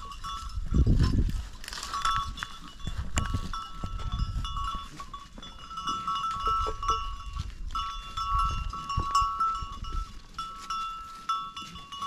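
Bells on a flock of goats and sheep, clinking on and off as the animals move, with uneven low knocks and rumbles underneath.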